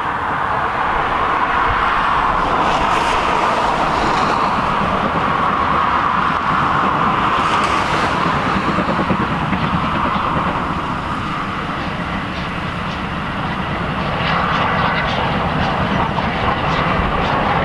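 Steam locomotive hauling a train of passenger coaches, running past with a steady rushing sound of the engine working. Near the end, wheels click over the rail joints.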